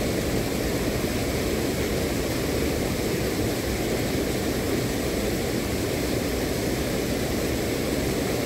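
Steady rushing of water from a waterfall, an even, unbroken noise.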